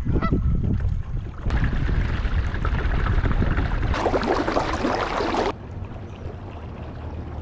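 Water rushing and splashing along a moving kayak's hull, over a low rumble. The splashing is loudest for about a second and a half near the middle, then drops to a softer wash.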